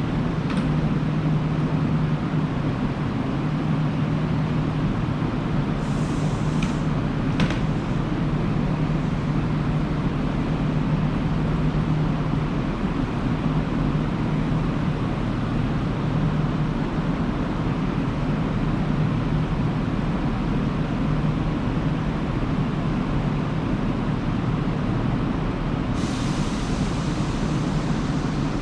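Electric train standing at a station platform: a steady low hum, with short hisses of air about six and seven seconds in and a longer hiss starting near the end.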